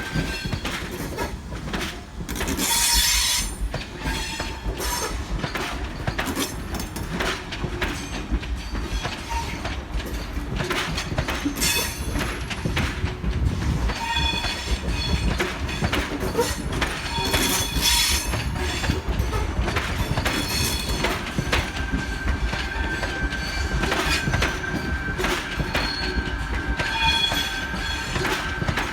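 Sydney Trains Tangara electric train moving slowly over the yard points and crossovers: steady wheel clacking over rail joints, with bursts of high-pitched wheel squeal about 3, 12 and 18 seconds in, and a steady high whine setting in about two-thirds of the way through.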